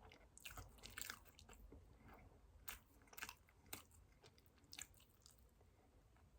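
Faint close-up chewing of a soft chocolate ring cake, with irregular small wet mouth clicks and smacks.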